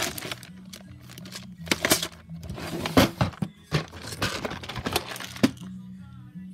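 Hard plastic clicks and knocks as Lego bricks and clear plastic compartment storage boxes are handled, the sharpest knocks about two, three and five seconds in. Background music with a low bass line plays underneath.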